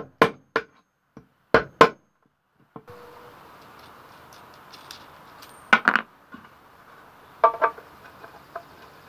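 Several sharp knocks of a screwdriver driving out conduit knockouts in an electrical box, six in the first two seconds. Later come lighter metal clinks as a metal conduit fitting and its locknut are handled and fitted into the box.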